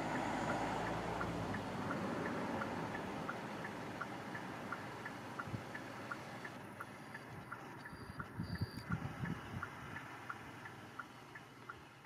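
A soft, even tick-tock, two alternating clicks at about four a second, over a faint hiss, fading out. A few low thumps come about two-thirds of the way through.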